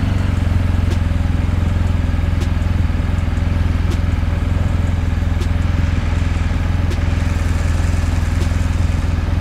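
BMW R1250 GS Adventure's boxer-twin engine idling steadily, with a few faint ticks over it.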